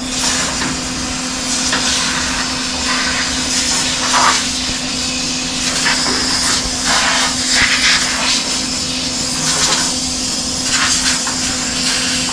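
Plasma cutter cutting through sheet metal at a roof pillar: a loud, steady hiss of air with a crackling, sputtering arc.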